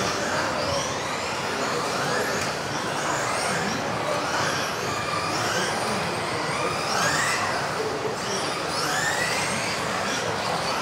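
Several electric 1:10 RC off-road buggies racing, their motors whining up and down in pitch again and again as they accelerate and lift off around the track, over a steady hiss of tyres and hall noise.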